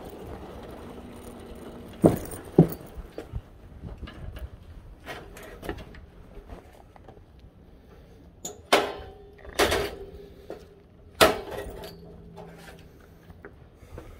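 Keys jangling and a lock and door being worked: a pair of sharp clicks about two seconds in, a few lighter ones, then three louder knocks between about nine and eleven seconds in.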